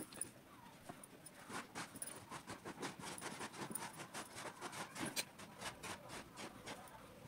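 Soft, irregular crinkling and small clicks: a plastic henna cone squeezed in the hand as it draws, with light rustles of hands moving on paper.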